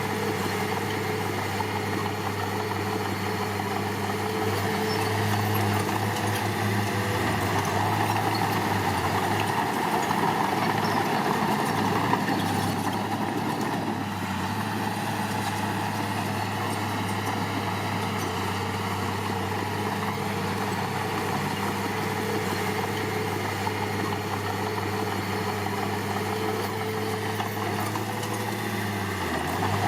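Diesel engine of heavy construction machinery running steadily. It grows a little louder for a few seconds in the first half and drops briefly in pitch near the end.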